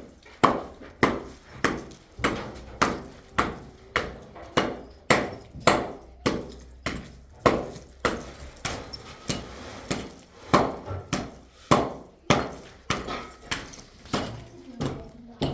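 A hand tool striking over and over in a steady working rhythm, about one and a half sharp blows a second.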